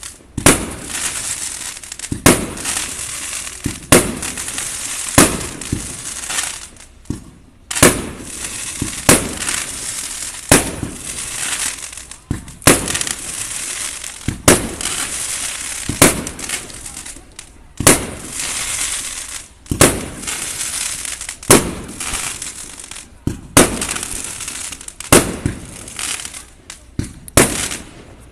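Aerial firework shells bursting in a steady string, a sharp bang about every second and a half. Each bang is followed by a crackling hiss as the stars burn out.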